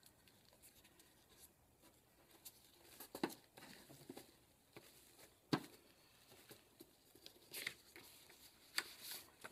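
Faint, scattered rustles and small taps of paper cut-outs being handled and glued down onto a sheet of paper.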